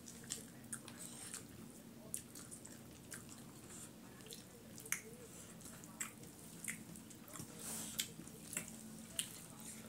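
Eating by hand: fingers mixing rice and curry on steel plates, and chewing, heard as faint, irregular wet clicks and smacks.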